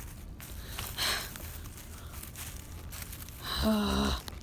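Faint rustling about a second in, then a short voiced sound, like a sigh or a brief hum, near the end, over a low background rumble.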